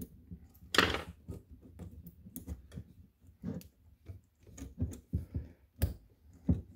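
Metal internals of a 3/4-inch drive round-head ratchet clicking and scraping as they are worked back into the greased head by hand: irregular small clicks and knocks, with louder ones about a second in and near six seconds.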